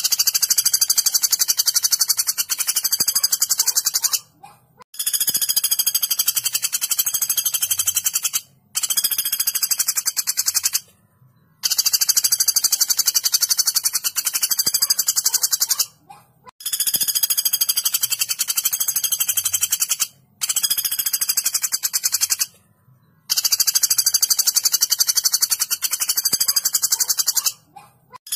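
Common flameback woodpecker (pelatuk bawang) giving long, sharp rattling calls of rapidly repeated high notes. There are seven bouts of about two to four seconds each, with short pauses between them.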